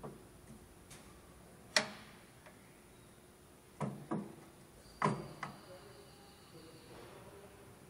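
Metal clicks and knocks as the ribbed circular-blade roller of a stainless-steel vegetable dicing machine is handled and seated on its shaft. There is a sharp click about two seconds in, then a quick pair of knocks and two more about a second later. A faint metallic ring follows the loudest of them.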